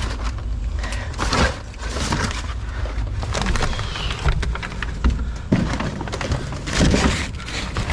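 Junk being handled and shifted about: scattered knocks, clatters and rustles, over a steady low rumble.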